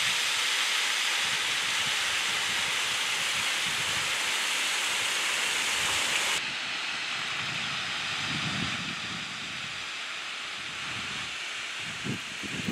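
Steady rush of small waterfalls cascading over sandstone ledges into a rock pool. About six seconds in it cuts suddenly to a quieter, more distant rush of falling water, with a few low bumps near the end.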